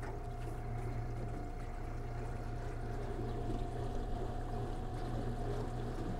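Garmin Force Kraken 36-volt bow-mount electric trolling motor running flat out, a steady whine over water rushing along the aluminium plate hull.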